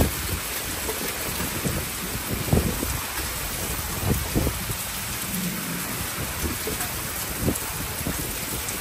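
Steady rain falling, with a low rumble of thunder underneath and a few brief low thumps.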